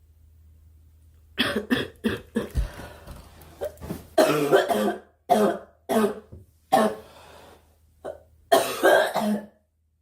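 A girl coughing over and over, in a run of short coughs that come in bunches, starting about a second and a half in.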